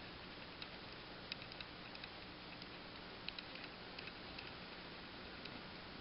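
Faint handling noise: scattered light clicks and ticks, about a dozen, over quiet room tone.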